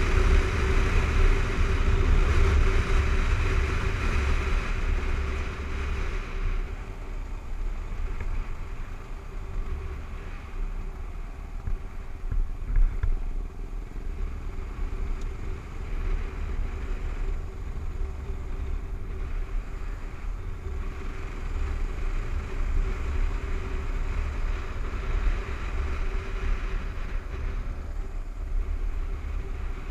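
Kawasaki KLR 650's single-cylinder engine running steadily while riding a dirt road, under heavy wind rumble and a rushing hiss that eases after about six seconds.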